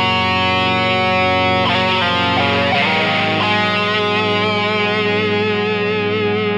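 Electric guitar played through a takky drive2 extreme drive pedal: sustained, driven notes that change a couple of times, then a long held note with vibrato, over steady lower tones.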